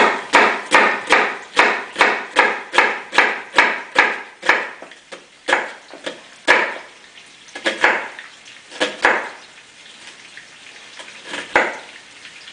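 Kitchen knife dicing an onion: quick, regular chops about two to three a second for the first four seconds or so, then slower, scattered chops.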